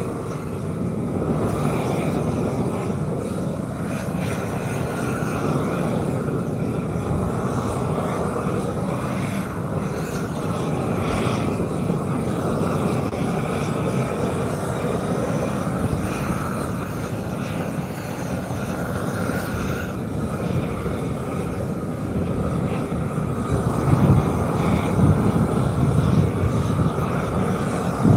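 Torch burning steadily as it heats the asphalt of a speed bump to soften it. The sound grows louder, with low surges, about 24 seconds in.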